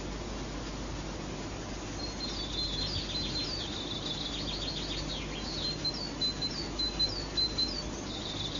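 A small songbird singing high chirps, starting about two seconds in with a rapid trill and then a run of separate short chirps, over a steady low hum and hiss.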